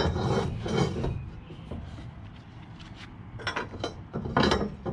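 Square steel tube being slid into a truck's trailer-hitch receiver: metal scraping and clunking against metal, loudest in the first second, quieter for a while, then a few sharp knocks near the end as it is pushed home.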